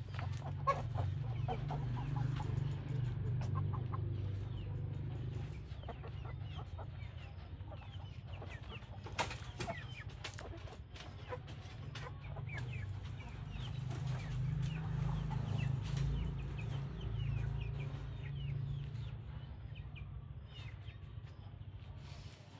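A flock of chickens clucking and calling, with many short high chirps all through and a steady low hum underneath.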